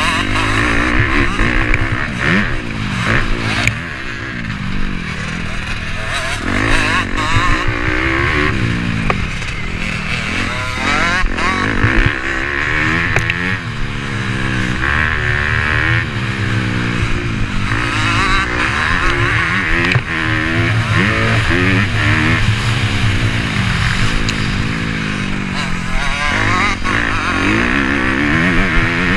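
Motocross dirt bike engines revving up and down over and over as they are ridden, the pitch rising and falling every second or two.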